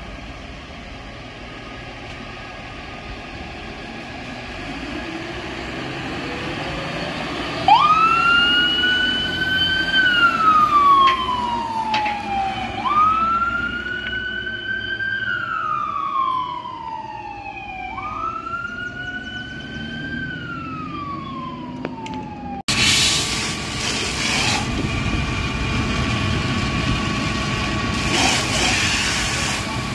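Fire engine pulling out with its engine running, then its siren wailing three times, each wail jumping up quickly and then falling slowly over about five seconds. After a sudden cut, a fire hose sprays water with a steady hiss over a running engine.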